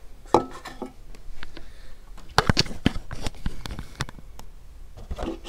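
A metal watch tin and its packaging being handled and turned: a series of sharp clicks and knocks, bunched together a little past halfway.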